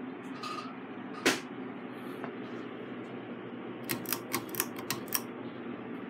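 Broan 52-inch ceiling fan running steadily, a constant whooshing hum. A sharp click comes about a second in, and a quick run of about six clicks follows a little past the middle.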